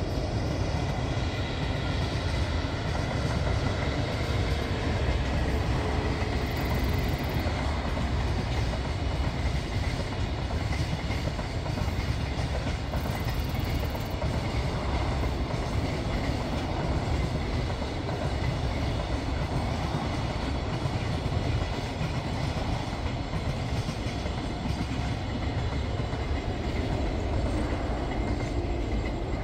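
Container freight train passing, hauled by a JR Kyushu EF81 electric locomotive: a steady rumble of wagon wheels on the rails as the long train of container wagons goes by.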